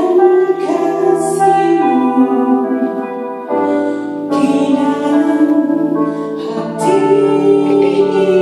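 Music: sustained, keyboard-like chords that change about every three seconds.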